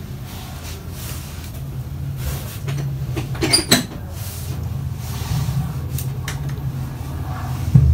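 Steady low hum with a short run of sharp metallic clicks about halfway through, another click a little later and a thump near the end.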